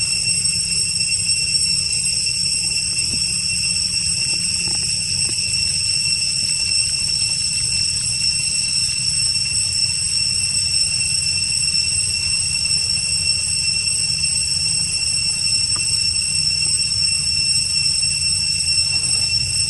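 Steady, high-pitched drone of cicadas, with a low rumble underneath.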